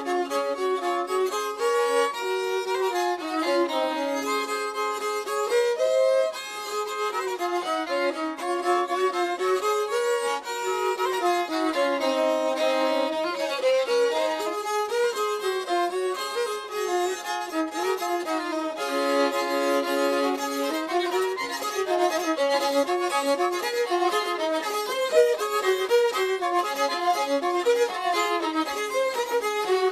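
Music: a fiddle playing a continuous melody of changing notes.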